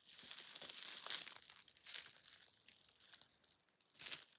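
Crinkling, rustling noise with small clicks as hands rummage through a pile of jewellery and its packaging, with a short, louder rustle near the end.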